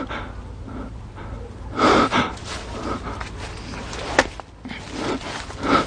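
A person breathing hard, with two sharp breaths, about two seconds in and near the end, and a single sharp click a little past four seconds in.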